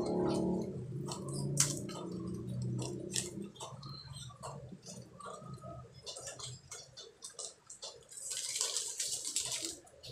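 Small clicks and handling noises as a second packet of oxalic acid powder is added to a plastic bottle of cleaning mix, with a hiss of pouring near the end. A low hum runs under the first few seconds.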